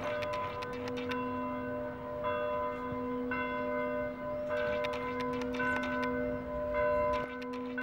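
Bells ringing: notes struck over and over in a slow, shifting pattern, each one ringing on, over a steady low hum.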